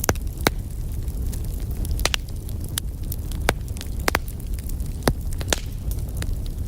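Fire in a fireplace crackling, with sharp irregular pops every half second or so over a low steady rumble.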